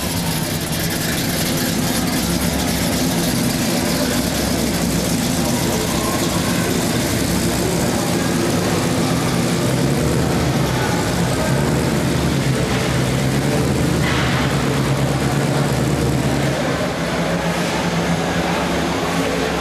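Supercharged hot-rod engine running at low speed with a steady, deep rumble as the car creeps across the floor, echoing in a large hall.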